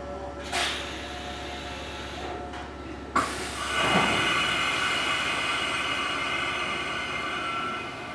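Electric commuter train standing at a station: a short burst of compressed-air hiss about half a second in, then a clack about three seconds in and a longer, louder air hiss with a steady whistle that fades near the end, as pneumatic doors close and air is released before departure.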